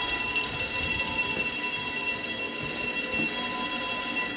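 Fire alarm sounder giving a loud, steady continuous tone during a fire alarm test; it cuts off abruptly at the end.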